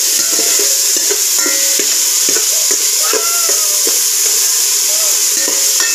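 Garlic and tomato slices sizzling in hot oil in an aluminium pot as they are sautéed, with a metal spatula stirring and scraping against the pot in short strokes. Faint gliding pitched sounds come and go in the background.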